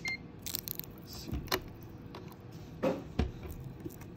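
A short electronic beep right at the start, the second of a pair, as the power station's AC output comes on and the connected phone begins charging. Then scattered light knocks and rustles of handling, the loudest about three seconds in.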